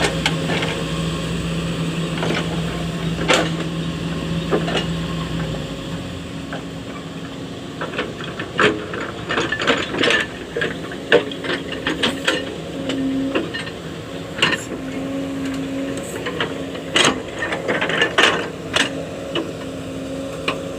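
Excavator engine running with a steady low hum that drops away about six seconds in. Over it come repeated metallic clanks and creaks from the machine, with a higher intermittent whine in the second half.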